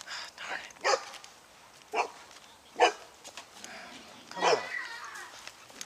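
A dog barking: four barks about a second apart, the last one longer and dropping in pitch.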